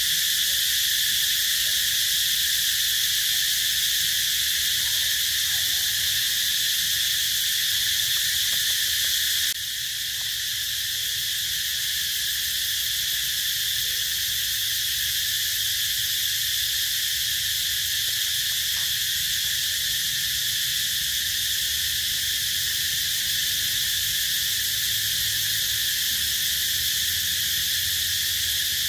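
Steady, dense high-pitched chorus of insects buzzing without a break; it dips slightly in level about ten seconds in.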